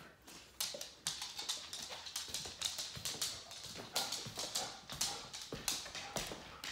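A dog's claws clicking on a hardwood floor as it walks around: quick, irregular taps, several a second.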